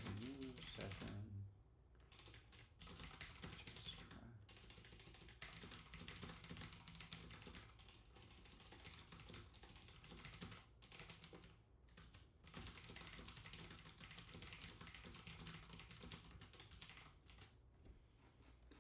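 Faint typing on a computer keyboard: a dense run of key clicks with a few short pauses.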